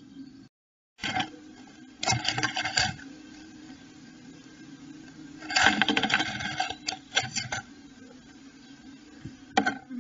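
Blue tit inside a wooden nest box scratching and rustling in its moss-and-hair nest while it works the nest cup, heard as several bursts of scratchy clicks and crackles over a low steady hum.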